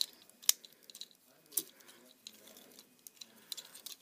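Hands handling a plastic Transformers deluxe action figure as it is taken off its packaging: scattered sharp plastic clicks and rustling, the loudest click about half a second in and another about a second and a half in, with small ticks near the end.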